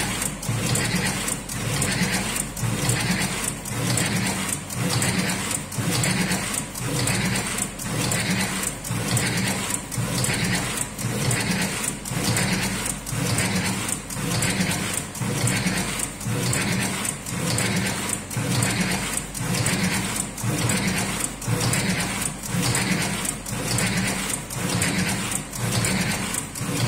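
Electric automatic cigarette tube-filling machine running, its motor-driven mechanism cycling with a sharp click about once a second.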